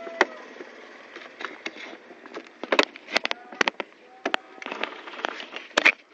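Irregular sharp clicks and knocks of hands handling plastic scooter body panels close to the microphone, loudest about three seconds in and again near the end.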